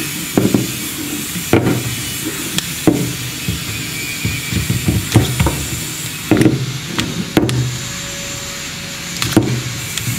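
Handling noise from a DJI OM 5 smartphone gimbal and its magnetic phone clamp being fitted together: a string of irregular sharp clicks and dull knocks, over a steady background hiss.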